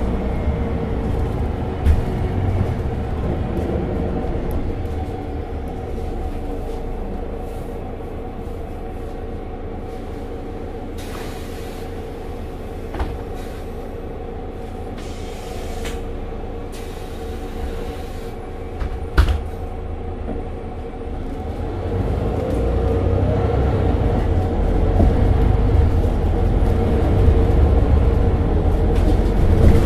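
Mercedes-Benz Citaro 2G articulated bus's diesel engine idling at a stop, a steady low drone with a few short clicks and hisses. About two-thirds of the way through, the engine rises in pitch and gets louder.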